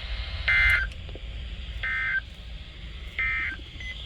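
Three short bursts of Emergency Alert System SAME data tones over NOAA Weather Radio, each a raspy two-tone warble lasting about a third of a second, spaced about 1.3 seconds apart. This is the End of Message code that closes the special marine warning broadcast. A steady low radio hum runs underneath.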